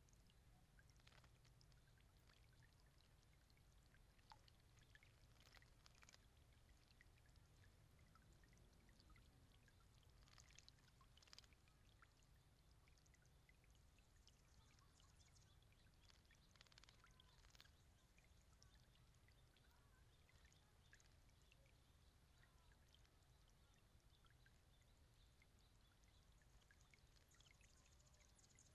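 Faint splashing and pattering of a small solar floating fountain spraying water into a stone birdbath, with occasional brief splashes from a bathing hooded oriole.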